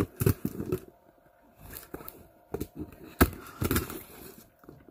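A knife cutting open a cardboard shipping box: a series of short scraping and knocking sounds as the blade is drawn through and strikes the cardboard, several close together in the first second, then single strokes further on.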